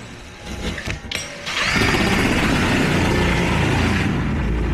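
Power drill cutting a hole through the drywall ceiling for a light fixture. It starts up about a second and a half in and runs steadily, with the grinding of the cut easing off near the end while the motor keeps running.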